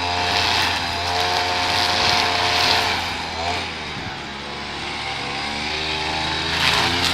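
Small gasoline engine of lawn-care equipment running steadily, its pitch dipping and rising under changing load about halfway through and again near the end.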